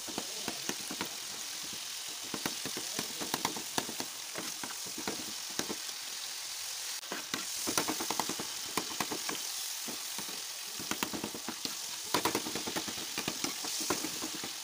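Sliced tomatoes sizzling as they fry in hot oil, while a metal ladle stirs them and clicks and scrapes against the metal pan. There are denser runs of scraping about halfway through and again near the end.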